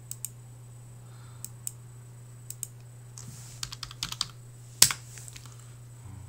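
Computer keyboard being typed on in irregular key clicks: a couple near the start, a few scattered ones, a quick run of keystrokes about three and a half seconds in, and one louder key strike just before five seconds. A steady low hum runs underneath.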